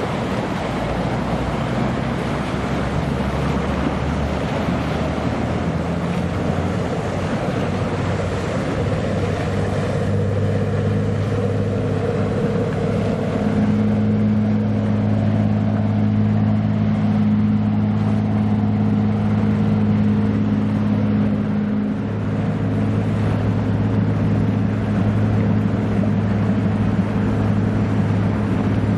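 Diesel engine of a small coastal aggregates carrier passing close by: a low steady drone that grows louder about halfway through, over the wash of water and wind on the microphone.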